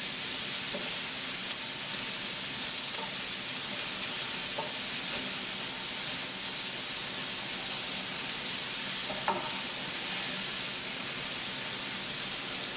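Onions sizzling steadily as they fry in olive oil in a pan, with a couple of faint ticks.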